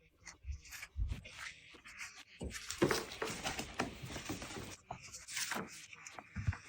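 Packaging being handled during an unboxing: irregular rustling and scraping, with a few soft knocks, one about a second in and one near the end.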